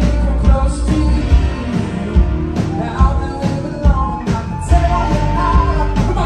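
Live rock band playing: two electric guitars and a drum kit, with a male voice singing over them.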